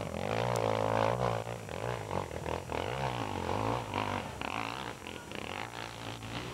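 Off-road motorcycle engine revving up and down, its pitch rising and falling as the throttle is worked, as on a hill climb.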